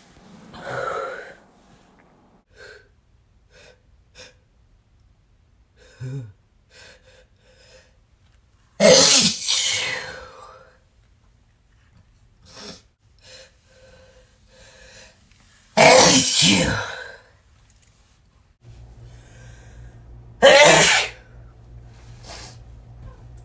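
A person sneezing hard three times, several seconds apart, each sneeze a loud sudden burst that falls in pitch. Quieter gasping breaths come in between. A steady low hum sits in the background near the end.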